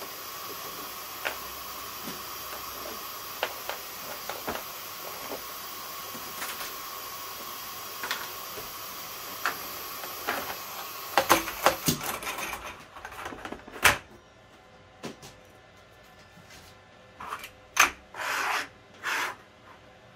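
A steady machine hum with a held whine and scattered small clicks stops about twelve seconds in, amid a few sharp wooden clacks as thin laser-cut plywood pieces are lifted from the sheet. Near the end, several short scraping rubs as the wooden pieces slide over the laser's metal honeycomb bed.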